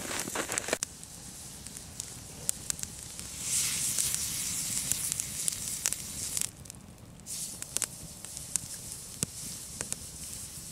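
Steak sizzling on a fire-heated stone beside a crackling campfire, with scattered sharp pops from the burning wood. The sizzle is a bright hiss that swells for about three seconds in the middle and then cuts off suddenly.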